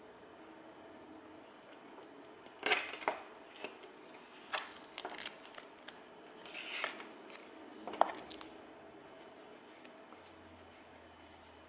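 Handling noise from foam face pads for FPV goggles being picked up and turned over: several short, scratchy rustles and light clicks, the sharpest click about eight seconds in.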